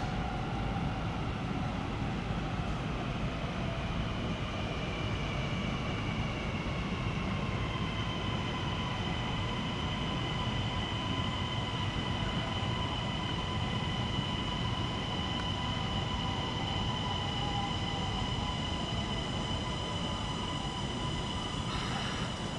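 Kintetsu 80000 series Hinotori electric limited express train pulling slowly into a station platform. A steady low rumble runs under a high electric whine, whose pitch falls over the first several seconds and then holds steady as the train creeps to a stop.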